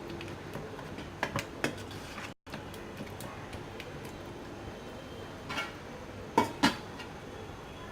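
A few light metal clinks of a utensil or lid against a cooking pot, one small cluster a little over a second in and a louder pair near the end, over a steady low background.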